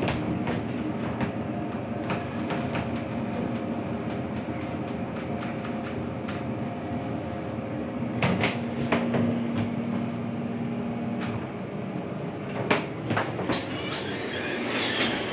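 Small Dover passenger elevator, modernized by Schindler, travelling between floors: the car's steady running rumble, with a few clicks, a short steady hum partway through, and more clicks near the end.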